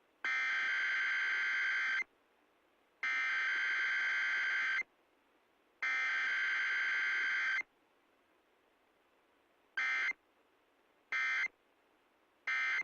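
Emergency Alert System SAME digital data bursts broadcast over AM/FM radio: three long header bursts of a little under two seconds each, then after a pause three short end-of-message bursts about a second and a half apart. They are the coded header and end-of-message signal of an EAS Required Weekly Test.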